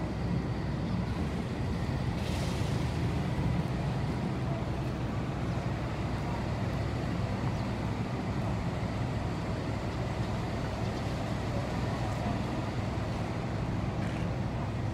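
Steady low engine rumble with no distinct beat or change in speed.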